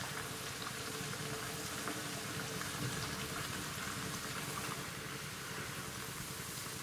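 Bhatura (maida dough bread) deep-frying in hot oil in a pan: a steady sizzle that does not let up. The oil is hot enough to puff the bread.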